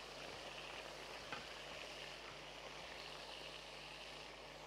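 Beef steak slices frying in hot oil and ghee in a pot: a faint, steady sizzle, with a single light click about a second in.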